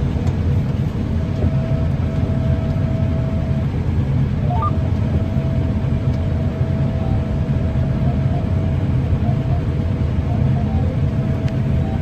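John Deere X9 combine harvester running steadily in the field, heard from inside its cab: an even low rumble with a thin, steady whine above it.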